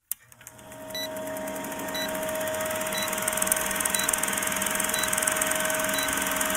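Old film-projector countdown sound effect: a steady mechanical projector whirr with a constant hum, fading in over the first second, and a short high blip about once a second.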